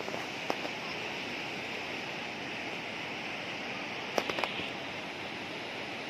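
Mountain river rushing over rocks and through shallow rapids, a steady noise of moving water. A sharp click about half a second in and a quick cluster of clicks a little after four seconds.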